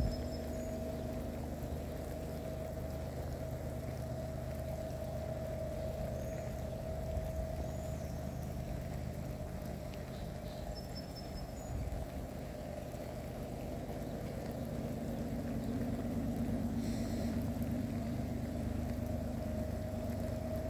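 GE ES44AH diesel locomotive of an approaching freight train, still out of sight: a steady low engine drone that grows a little louder in the last few seconds.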